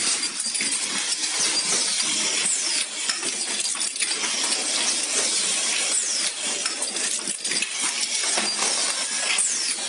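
Automatic deep groove ball bearing assembly machine running: a steady, dense metallic clinking and clicking of steel bearing rings and balls being fed and moved through the stations.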